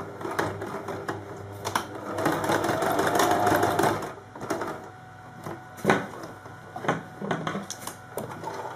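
Domestic electric sewing machine stitching along a fabric edge, running louder and faster for a couple of seconds before stopping about four seconds in. A few separate knocks and clicks follow.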